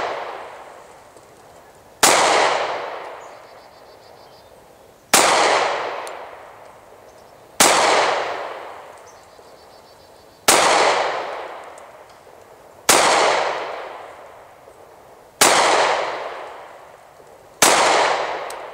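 Rock Island Armory 1911 pistol in .45 ACP firing seven single shots at a slow, even pace, about one every two and a half seconds, each followed by a long fading echo. The pistol cycles every round without a jam.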